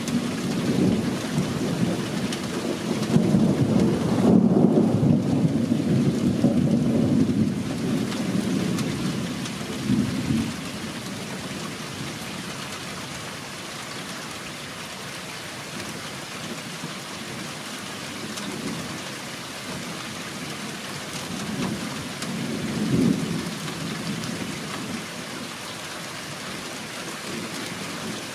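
Thunderstorm: rain falling steadily, with rolling thunder. A long rumble of thunder fills the first several seconds, and shorter rumbles come about ten seconds in and again a little past twenty seconds.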